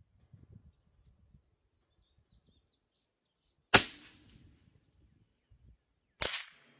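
A single shot from a suppressed .224 Valkyrie rifle about four seconds in, a sharp report that dies away over about half a second. About two and a half seconds later comes a second, quieter sharp report.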